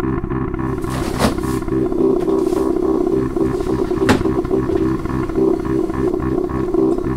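A loud, low droning rumble that pulses steadily, on the film's soundtrack. Two sharp clicks cut through it, about a second in and about four seconds in.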